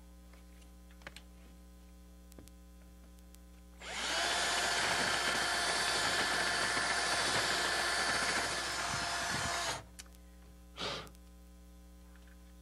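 Power drill with a spade bit running steadily for about six seconds, starting about four seconds in and cutting off suddenly, as it reams out a hole through a wooden door to widen it for a peephole's brass casing.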